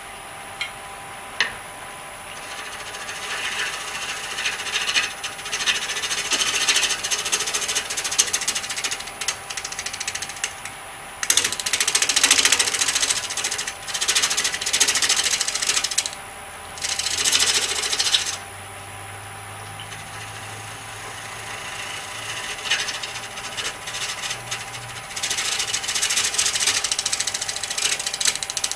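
Wood lathe running while a turning tool cuts the edge of a spinning walnut coaster blank, a rough scraping in passes that start and stop, loudest in the middle, with the motor's steady hum in the gaps. The tool is still ticking on high spots of the not-yet-round blank.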